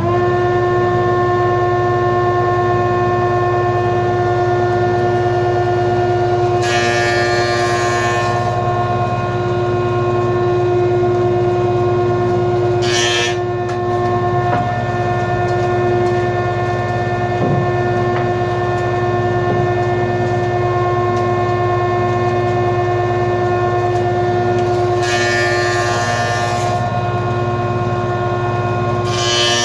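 Jointer running with a steady motor hum and cutterhead drone, with short bursts of hissing cutting noise as the board is fed across the knives: a longer pass about seven seconds in, a brief one around thirteen seconds, another around twenty-five seconds and a short one near the end.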